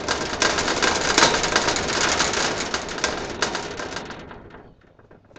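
A chimpanzee's display: loud, dense rattling and clattering of his wire-mesh pen. It fades away over the last couple of seconds.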